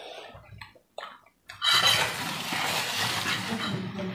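Eating noises at a table of instant noodles: forks against plates, then a continuous noisy stretch of eating sounds from about a second and a half in, after a brief drop-out.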